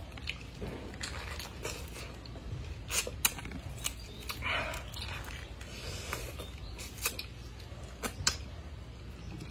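Biting and tearing into the tough rind of a whole unpeeled pineapple, with scattered sharp crunches and snaps and chewing in between.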